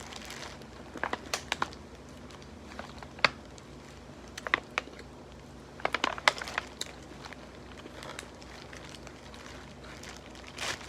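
Close-up seafood eating sounds: scattered sharp cracks and crinkling from shells and wrappings being handled and bitten, in short irregular clusters.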